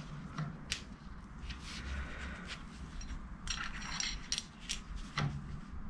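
Small steel parts of a thrust bearing clicking and scraping against each other and the lathe's cross-slide screw as they are fitted by hand. Faint, scattered light metallic clicks, busiest about three and a half seconds in.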